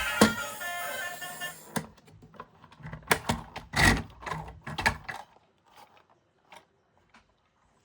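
Background music that stops about two seconds in, followed by irregular clicks, taps and rustles of plastic toy vehicles and their packaging being handled. The handling sounds thin out to a few faint ticks near the end.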